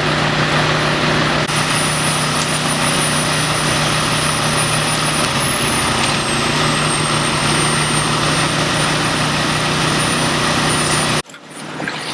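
Large engine running steadily and loudly, a constant low hum under broad noise, cutting off abruptly near the end.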